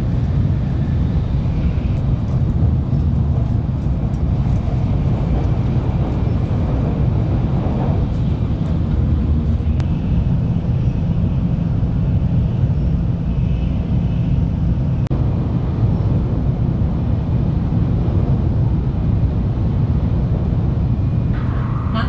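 Running noise of a Tokaido Shinkansen heard from inside the passenger cabin at speed: a steady low rumble with a fainter hiss above it, unchanging in level.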